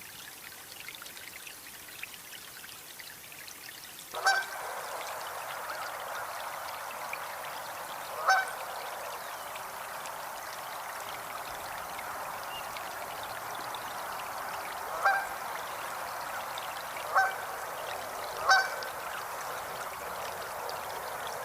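Canada goose honking: five single honks spaced a few seconds apart. They sound over a steady rushing noise that starts abruptly about four seconds in.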